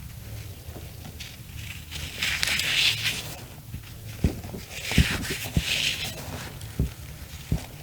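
Reformed cornstarch blocks being squeezed and crushed by hand, giving soft, powdery crunching in two bursts. A few light knocks fall in between.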